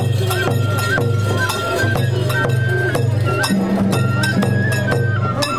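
Japanese festival music: a high melody line stepping between a few notes over regular percussion strikes, with a steady low hum beneath.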